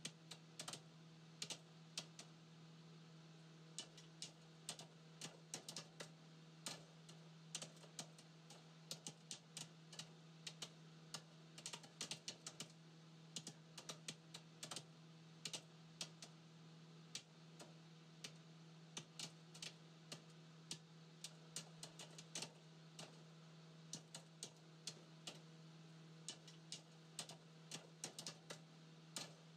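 Faint, rapid, irregular light clicks, several a second, over a steady low hum.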